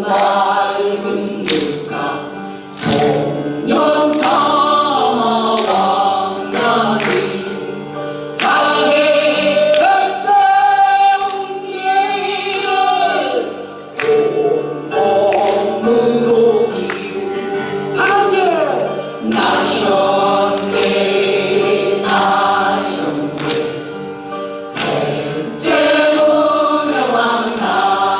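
Korean folk-style song: group singing with instrumental accompaniment, the voices holding long notes over regular drum strikes.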